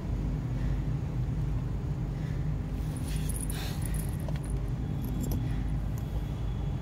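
Kittens feeding on a plastic tarp: short bursts of crinkling and crunching about three seconds in and again near five seconds, over a steady low hum.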